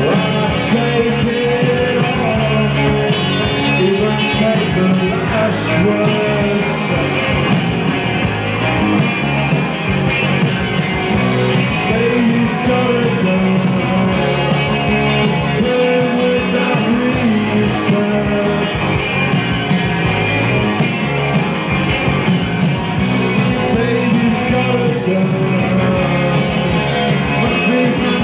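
Indie rock band playing live: electric guitars, bass guitar and drums, with a male lead vocal sung over them.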